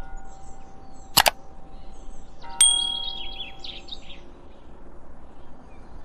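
Nature-sound soundtrack of birdsong and ringing chimes. There is a sharp double click about a second in. A chime is struck at about two and a half seconds and rings for over a second, with a quick run of bird chirps over it.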